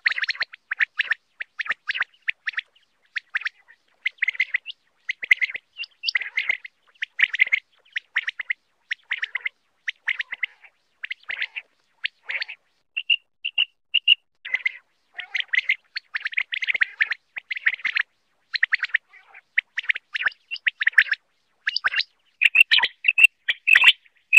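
Male common quail calling over and over, short bursts of high notes about once a second. This is a quail call recording of the kind played as a lure in quail hunting and netting.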